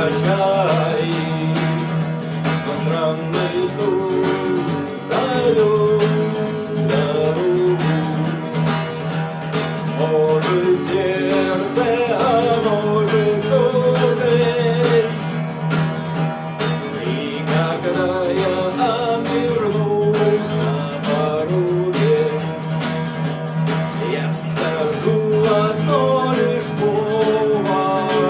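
Instrumental passage of a song: acoustic guitar strumming steadily under a wavering melody line.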